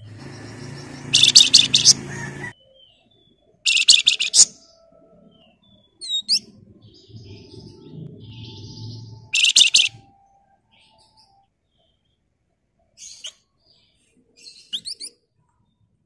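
A caged Javan fulvetta (flamboyan) calling: three loud bursts of rapid, close-packed harsh chatter (ngebren, nyerecet), with a few short thin whistled notes between them and near the end.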